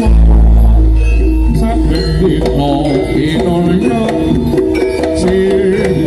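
Javanese jaranan gamelan music at full level: hand-drum patterns and melodic metallophone lines, with a deep low gong-like stroke at the start that rings for about a second and a half.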